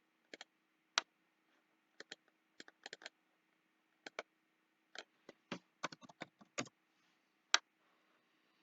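Computer mouse and keyboard clicks, single and in quick pairs, with a busier run of clicks about five to seven seconds in, over a faint steady hum.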